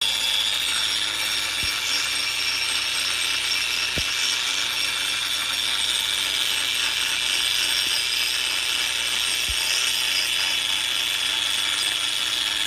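Handheld power grinder running steadily against the top of a cement column, grinding the concrete surface smooth and level: a constant high whine over gritty noise.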